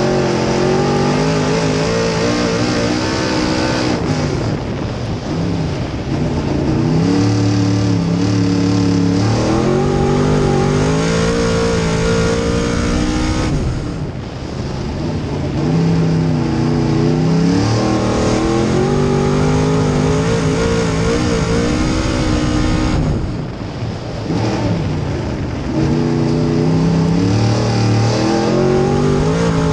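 Small-block V8 engine of a dirt modified race car, heard from the cockpit at race speed. Its pitch climbs under acceleration and drops away three times as the driver lifts, then climbs again.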